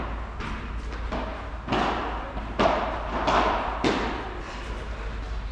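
A padel rally: a run of sharp knocks as the ball is struck with solid paddles and bounces off the court and walls, coming quicker toward the middle, each knock trailed by a short echo.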